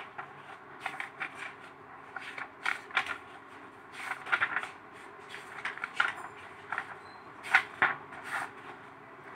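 Paper pages of a paperback textbook being leafed through by hand: irregular rustles and flips, over a faint steady hum.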